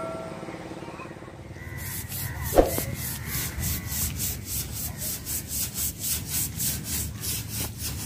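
Rhythmic scraping strokes, about three a second, starting about two seconds in, with a single sharp knock early in the run. A metallic ringing tone dies away at the very start.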